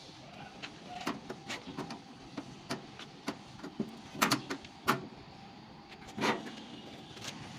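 Metal clicks and knocks as the steel operating rod of a fused switch is pushed and worked into the switch mechanism, with a cluster of louder clacks about four to five seconds in and a heavier knock about six seconds in.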